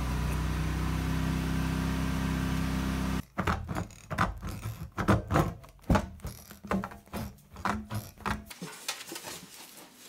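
A steady low hum stops abruptly about three seconds in. It is followed by tin snips cutting a sheet of metal, a run of sharp snips and clicks about two a second, which fade to softer scattered sounds near the end.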